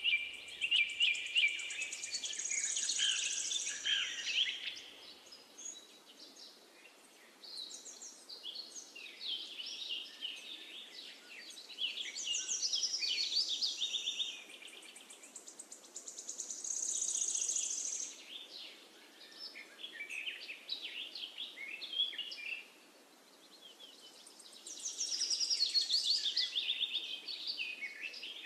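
Songbirds singing: bursts of rapid high chirps and trills every few seconds, over a faint steady hiss.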